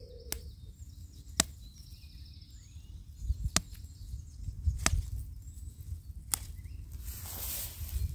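Sharp snaps of dandelion stems being picked by hand, several single snaps about a second or more apart, over a low wind rumble with a brief rustle of grass near the end.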